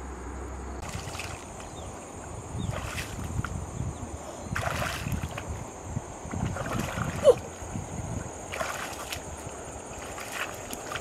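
Shallow river water sloshing and splashing around a person's legs as she wades along the bank, in uneven surges. A brief chirp-like sound stands out about seven seconds in.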